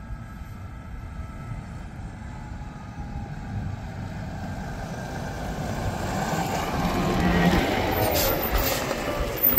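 Tractor engine running, a low rumble that grows steadily louder over several seconds.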